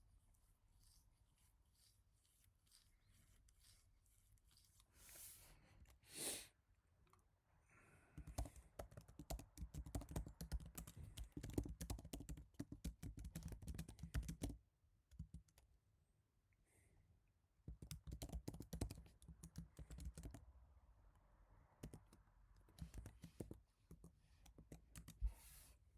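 Typing on an HHKB Professional Type-S keyboard with its silenced Topre capacitive switches: two runs of fast, quiet keystrokes, with scattered single keys between. A short soft swell of noise comes a few seconds before the first run.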